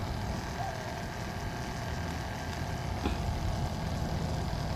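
Wassermann 12V self-priming RV water pressure pump running with a steady low hum.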